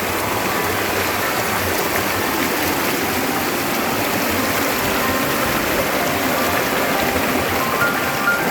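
Mountain stream water rushing steadily over rocks. Faint music notes come in near the end.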